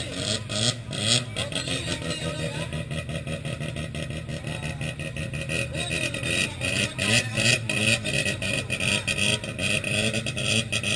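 Mazda RX-7 FC3S's 13B two-rotor engine running loud with rises and falls in revs, broken by frequent irregular sharp pops.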